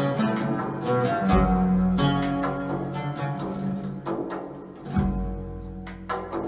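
Music with plucked-string notes and deep bass notes, played back through Rogers LS7t bookshelf speakers and a Yamaha YST-SW305 subwoofer; a deep bass note comes in just over a second in and another about five seconds in.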